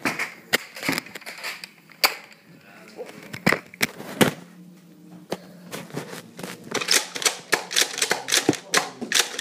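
Nerf blasters firing foam darts: a run of sharp clicks and snaps, scattered at first, then several a second in the last few seconds.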